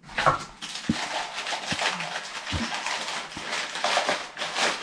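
Pieces of a metal camping cookware set being handled, with scattered light clicks and knocks of metal and rustling as someone rummages for a cup.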